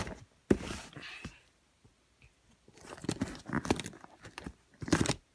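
A mailed package being forced open: crunching and tearing of the packaging in three bouts, with a quiet gap of over a second after the first.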